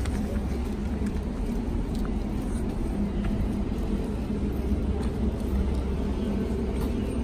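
Steady low outdoor rumble with a faint steady hum running through it.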